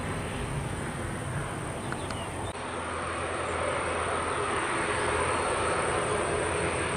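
Twin turboprop engines of a Let L-410 Turbolet running on the runway, a steady drone with low tones that grows louder after about three seconds.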